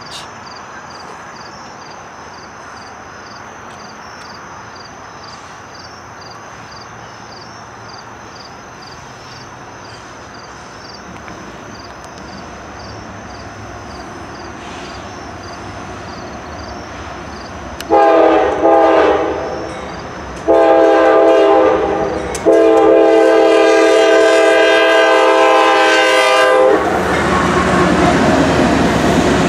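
Diesel freight locomotive's multi-chime air horn sounding three blasts as the train approaches, the last one long, about four seconds. Near the end the lead locomotive passes close with a loud rush of engine and wheel noise. Crickets chirp steadily before the horn.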